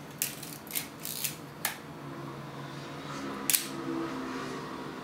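Pentax ME 35mm SLR's mechanism clicking: four quick small clicks in the first couple of seconds, then one louder sharp click about three and a half seconds in as the shutter fires and opens.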